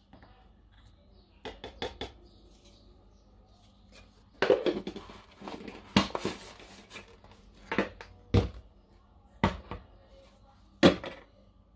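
Plastic measuring scoop and powder tub clicking and knocking as shake powder is scooped into a plastic shaker bottle: scattered light knocks and scrapes, with several sharper knocks in the second half.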